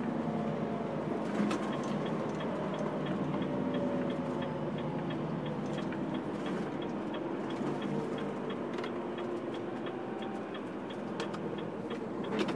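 A truck's turn-signal indicator ticking evenly, about three ticks a second, over the steady hum of the Renault Trucks Range T 460's diesel engine and road noise inside the cab while it takes a roundabout.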